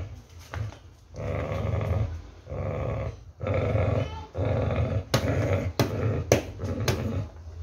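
Pit bull growling in stretches of about a second each while it grips and tugs a rope toy. Several sharp clicks or knocks come in the second half.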